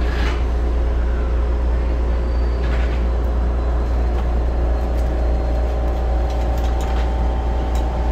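Osaka Monorail train heard from inside the driver's cab as it pulls away from a station: a steady low hum, with a set of steady higher tones coming in about halfway through as the train starts to move.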